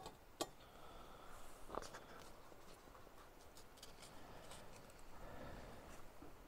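Faint, scattered crackling of butter sizzling under a hoagie roll in a cast iron skillet, with a light knock just after the start.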